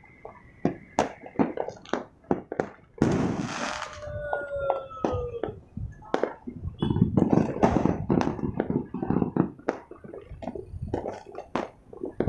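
Fireworks and firecrackers going off across a city, a steady scatter of irregular bangs and pops near and far. About three seconds in there is a dense crackling burst, followed by a falling whistle.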